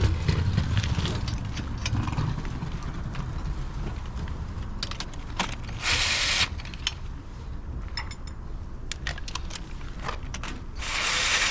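Metal tools and hardware clinking and rattling in irregular clicks while a wheel is being worked on, with two short bursts of hiss, one near the middle and a longer one near the end, over a steady low rumble.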